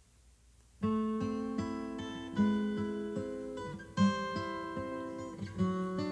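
Acoustic guitar music played back through an Onkyo CR-N765 receiver and Yamaha speakers, starting about a second in after near silence. Plucked notes and strums with ringing decay.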